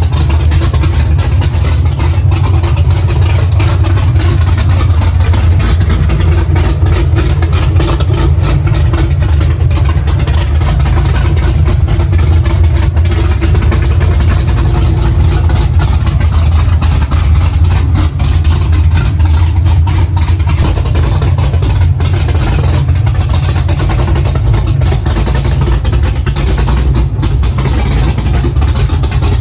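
Supercharged, big-cam V8 of a ZL1 Camaro idling loud and steady through open headers, with a choppy cam idle. It is warming up toward operating temperature on its first start after the build.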